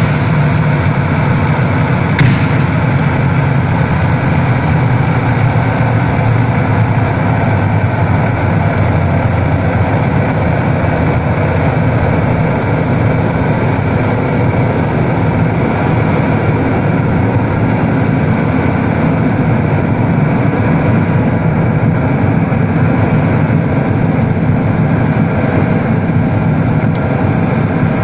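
Loud live electronic drone music: a dense, steady low drone made of layered sustained tones, with one sharp click about two seconds in.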